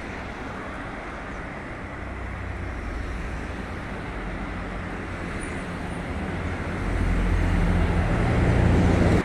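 Street traffic, with a motor vehicle's engine hum growing louder as it comes close, loudest near the end.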